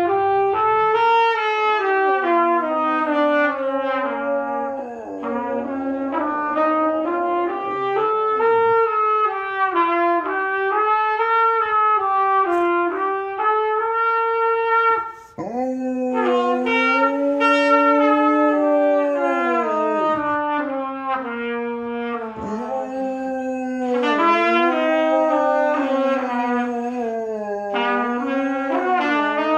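A beginner playing the trumpet: long, wavering held notes that often fall away at their ends, with a short break about fifteen seconds in. A Newfoundland dog howls along with it.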